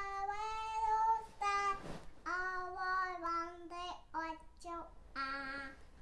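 A young girl singing a children's song in a high voice. A long held note at the start is followed by a run of shorter notes, and she stops shortly before the end.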